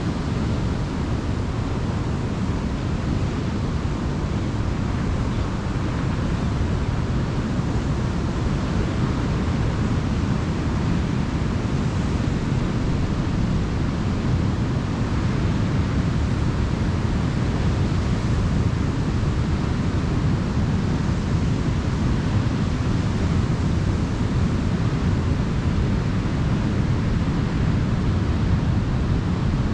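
Ocean surf washing onto a beach: a steady, even rush of waves with no single breaker standing out, heaviest in the low end.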